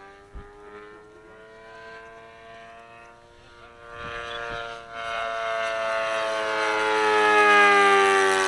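Supercharged YS 91 four-stroke model aircraft engine in a radio-controlled Messerschmitt Bf 109 flying past. Its steady note grows louder from about four seconds in and drops in pitch as the plane goes by near the end.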